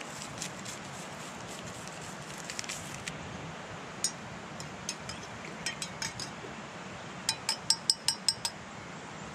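A metal spoon stirring instant coffee in a blue enamel camp mug. It clinks against the mug a few times, then taps quickly about eight times near the end, each clink ringing briefly.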